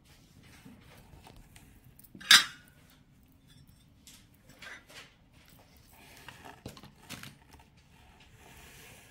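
Handling noises of objects being picked up and set down: one sharp, loud knock or clink about two seconds in, then scattered lighter clicks and soft rustling.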